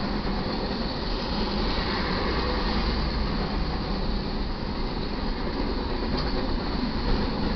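Intermodal freight train cars rolling past at track speed: a steady, loud rumble and rattle of steel wheels on the rails.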